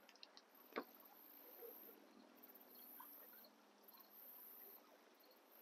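Faint running water of the Raisin River, a soft steady rush, with a single short click about a second in.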